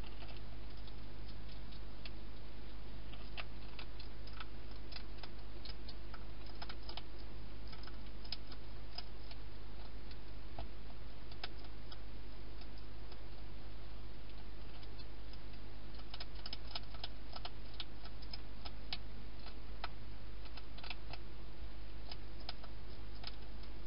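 Wild hedgehog eating, its crunching heard as irregular sharp clicks that come in clusters, over a steady low hum.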